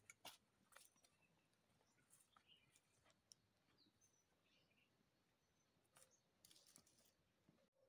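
Near silence: faint outdoor quiet with a few short, high bird chirps and scattered soft clicks.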